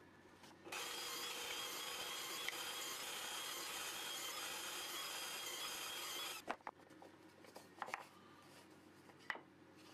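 Cordless drill running steadily for about six seconds as it bores a small hole through a square of particleboard, then stops suddenly. A few light knocks and clicks follow as the piece is handled.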